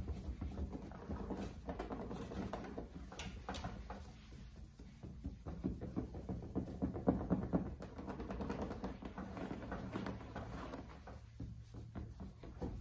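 Microfiber towel rubbing back and forth on a plastic headlight lens, wiping off polish, an uneven scrubbing sound with a faint steady low hum underneath.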